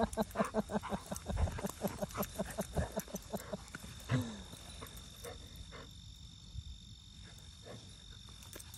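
Dogs play-growling in a rapid series of short grunts, about four or five a second, for the first few seconds. A single short falling growl comes about four seconds in.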